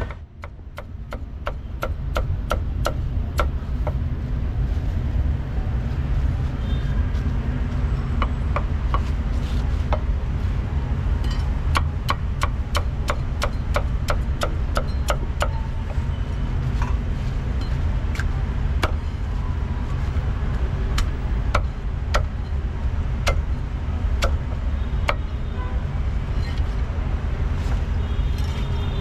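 Meat cleaver chopping crispy roast pork and roast duck on a thick round wooden chopping block: sharp knocks in quick runs of about three strikes a second, with short pauses between runs. Under them, a steady low rumble of traffic.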